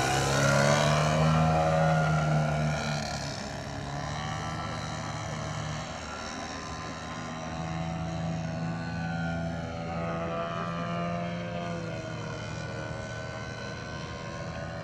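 Large radio-controlled SU-29 aerobatic model plane's 3W 170 cc petrol engine and propeller in flight, the drone bending up and down in pitch as the plane passes and manoeuvres. It is loudest in the first couple of seconds, then fainter as the plane moves off.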